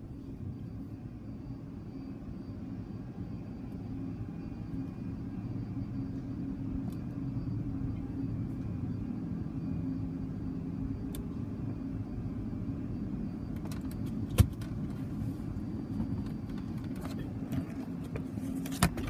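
Steady low rumble of an idling car and car wash machinery heard from inside the car's cabin, growing a little louder over the first several seconds. Two sharp knocks cut through it, one about fourteen seconds in and another near the end.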